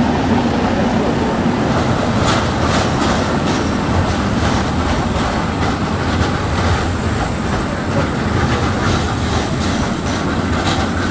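Škoda 15T ForCity articulated tram passing close by, with a steady rolling rumble and a run of sharp clacks as its wheels cross rail joints, starting about two seconds in.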